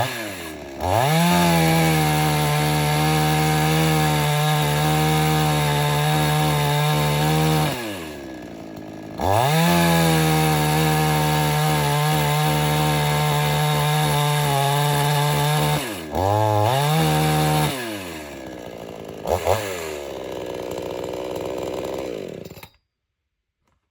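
Two-stroke chainsaw cutting wood. It revs up and holds steady at high speed for two long stretches of several seconds each, then makes a shorter burst and a quick blip. It drops back to idle between them, and near the end the engine cuts off suddenly.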